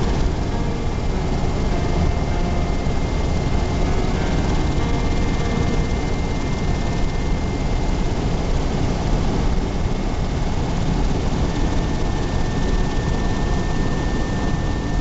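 Steady, loud engine rumble with a faint high whine running through it.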